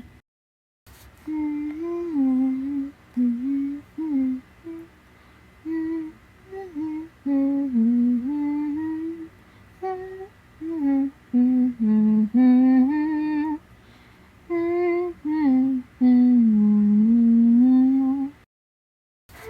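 A person humming a slow, wavering tune in short phrases, the notes sliding up and down with brief pauses between them.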